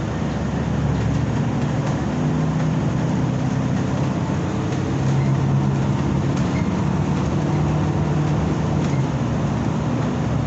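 Steady engine drone and road rumble heard from inside a moving city bus, the engine hum swelling and easing slightly as the bus drives along.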